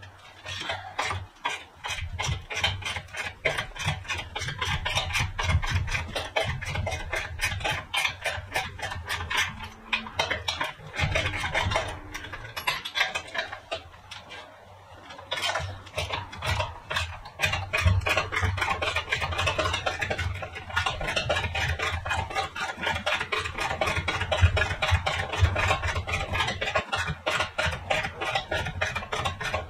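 Ratchet wrench clicking in long runs as the bumper's mounting bolts are loosened, with rubbing and handling of the metal bracket; the clicking pauses briefly about halfway through.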